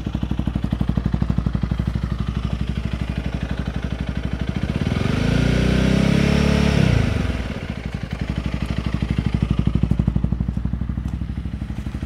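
Honda CRF300L Rally's single-cylinder four-stroke engine idling through an aftermarket MotoX exhaust with its baffle removed. About four seconds in it is revved up and held at about 4,500 rpm for a couple of seconds for a static noise test, then drops back to idle.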